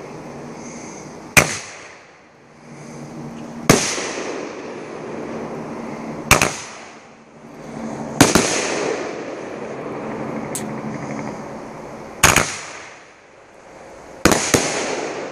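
World Class Rattler 500-gram firework cake firing shots into the air: seven sharp bangs at uneven spacing, the last two in quick succession near the end. Each bang trails off in a fading hiss.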